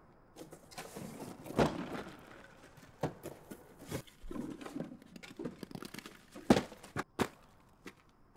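Apples being dumped on the ground and stamped on in rubber boots: irregular thuds and wet, squashing crunches, the loudest about six and a half seconds in.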